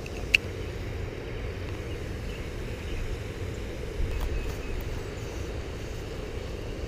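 A steady low rumble of wind on the microphone. About a third of a second in there is one sharp click as the spinning reel is worked for a cast, and a smaller knock comes about four seconds in.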